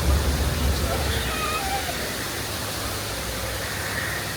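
Steady rushing of falling water with faint distant voices, and a low rumble in the first second or so.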